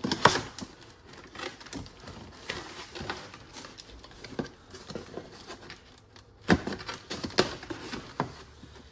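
A cardboard box being cut open with a knife and handled: scattered knocks, scrapes and rustles, with the sharpest knocks just after the start and twice more near the end.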